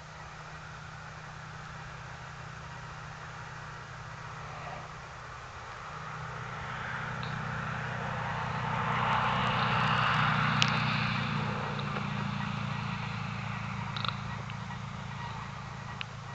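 A car passing on a road, its engine hum and tyre noise swelling to a peak about ten seconds in and then fading.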